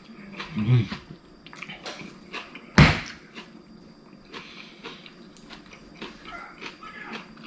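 Scattered light clicks and taps of handling, with one sharp knock about three seconds in, and a brief low murmur near the start.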